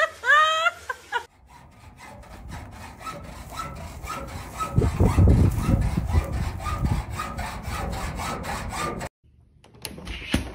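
A rhythmic rasping scrape, about four strokes a second, loudest in the middle and cutting off suddenly. It comes after a second of high rising squeaky calls.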